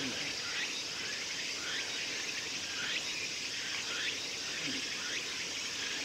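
Outdoor ambience of a steady insect chorus, with a short falling call repeated about once a second.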